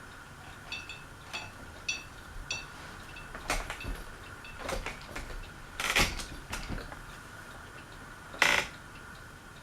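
Four light metallic ticks, evenly spaced, then three louder sharp knocks a couple of seconds apart, as ceiling fan parts are handled.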